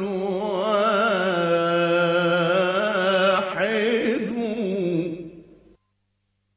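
A solo voice singing a long, ornamented held note of an Arabic religious chant (nasheed), its pitch wavering and sliding. It fades out about five seconds in, followed by silence.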